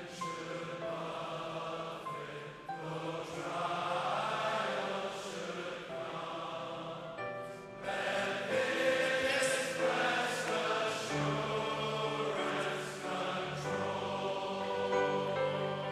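Church music of voices singing together in sustained chords, with deeper bass notes coming in about two-thirds of the way through.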